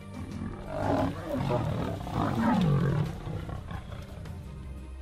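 Big cats growling at close quarters, a lioness and a leopard in a face-off. There are two loud bouts, about one second and two and a half seconds in; the second drops in pitch. It is quieter after that.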